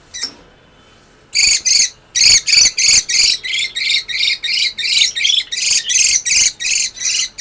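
Peach-faced lovebird giving shrill, harsh calls in a steady run of about three a second, starting about a second and a half in. These are the alarm shrieks of a lovebird held in the hand.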